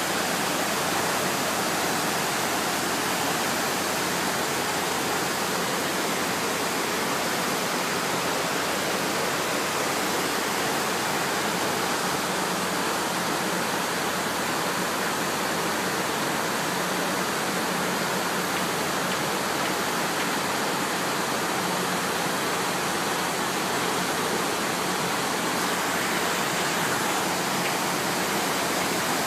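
Steady rush of the 9/11 Memorial pool's waterfall, water pouring down the stone walls into the pool and its central void.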